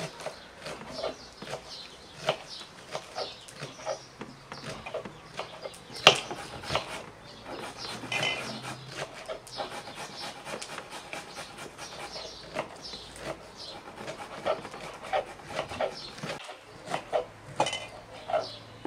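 Irregular crisp snaps of a knife cutting through fresh cucumbers as their ends are trimmed, with chickens clucking.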